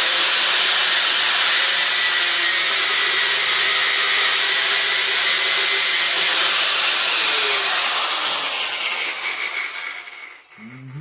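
Angle grinder with a cut-off disc cutting through a bent metal spoke strip held in a vise: a steady high whine over the grinding hiss. About seven seconds in the grinder is released and winds down, its pitch falling as the disc slows.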